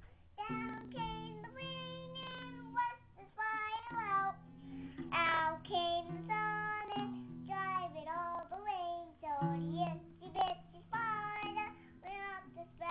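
Young child singing a song in phrases, with low steady notes from a strummed classical acoustic guitar ringing under the voice.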